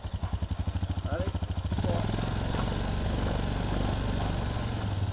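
A small engine running steadily, with a rapid pulsing beat in the first two seconds, and a few short high calls over it.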